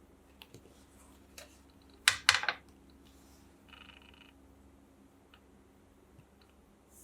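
Handling noises: scattered small clicks, then two or three loud clattering knocks about two seconds in, and a brief buzz a couple of seconds later, over a faint steady hum.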